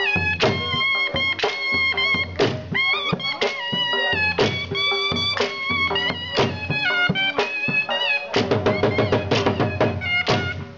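Dhol drum and a reed pipe playing a Brahvi chaap dance tune: the pipe holds a stepped melody over heavy drum strokes about once a second, which quicken into rapid strokes about eight seconds in.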